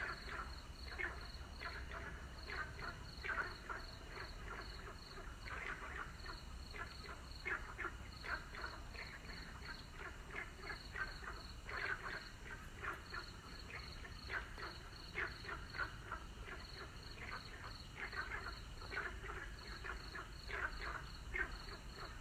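Frogs croaking in a chorus, many short calls overlapping, with a steady high pulsing call about three times a second running through it.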